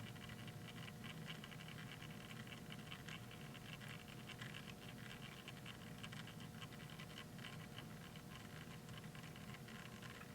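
Faint, light scratching and small clicks from 1:64 die-cast toy cars being handled and moved about on a surface, over a faint steady hum.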